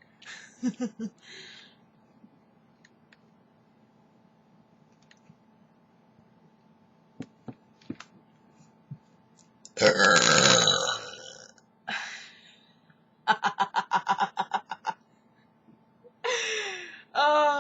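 A long, loud, deliberate burp about ten seconds in, its pitch falling. Shorter sounds follow it, including a quick run of short pulses.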